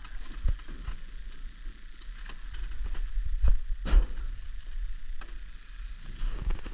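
Scattered light clicks and knocks over a steady low rumble, with one sharper knock about four seconds in.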